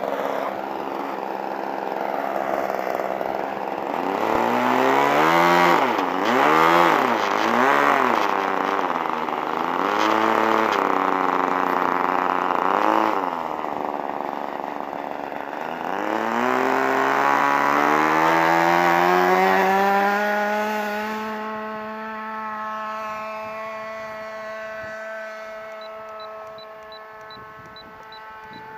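Super Tigre .51 two-stroke glow engine of an RC model plane, fitted with a Slimline Pitts muffler, revved up and down several times during the taxi, then run up to full throttle for the takeoff. It holds a steady high pitch that grows fainter as the plane climbs away.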